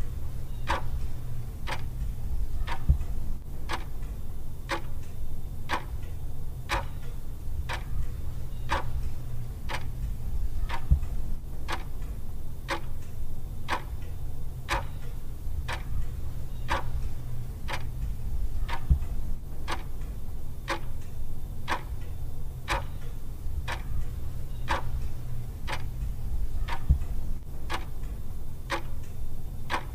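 A clock ticking steadily and evenly over a low steady hum, with a deep thud about every eight seconds.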